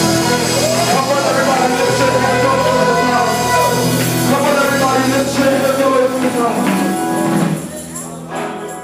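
Live gospel group singing over sustained instrumental backing; the music drops in level about seven and a half seconds in.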